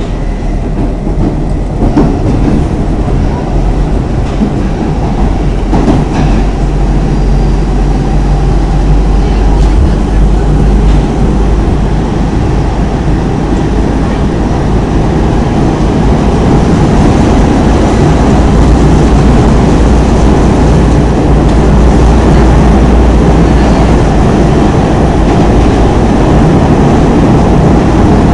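Stockholm Metro C6 train running along the track: a steady rumble of wheels and motors that grows gradually louder, with a couple of faint knocks about two and six seconds in.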